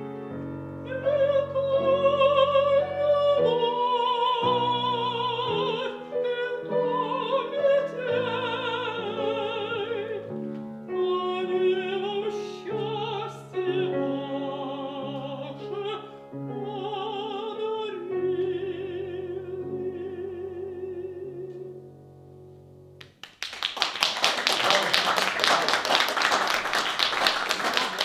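Mezzo-soprano singing a romance with wide vibrato over grand piano accompaniment, holding a long final note before the music ends. Near the end the audience breaks into loud applause.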